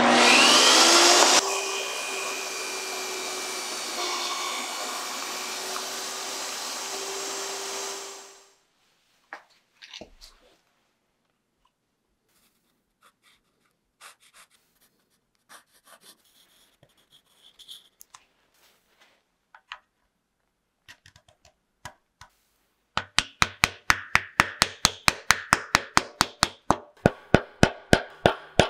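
Table saw starting up with a rising whine and running steadily for about eight seconds before it stops. Then scattered faint clicks, and from about two-thirds of the way through, a fast even run of light hammer taps, about four a second, setting a small brass pin into a wooden block.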